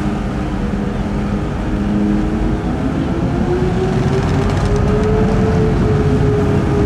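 Marine diesel engine of a ship or harbour tug running with a steady drone. Its pitch rises about a third of the way in and then holds as the engine speeds up.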